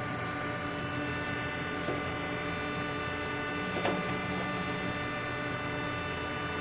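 Steady mechanical hum, like a running motor or fan, with a faint click about two seconds in and a sharper knock around four seconds in.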